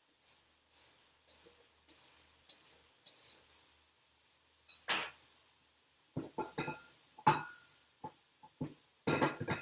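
A measuring cup scooping flour from a glass canister, and a butter knife scraping across the cup to level it, in a run of soft scrapes and clicks. Then a sharp clink and several knocks as the cup taps against the canister and the mixing bowl while the flour is tipped in.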